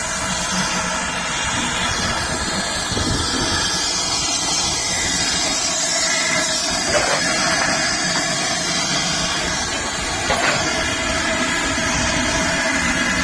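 Steady hiss of steam from a GWR 4200 class 2-8-0 tank steam locomotive, No. 4277. Twice, about seven and ten seconds in, there is a brief knock.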